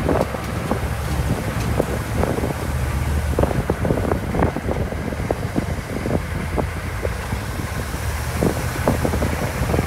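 Open-sided tour vehicle driving along a road: its engine runs with a steady low rumble, wind buffets the microphone, and frequent irregular knocks and rattles come through.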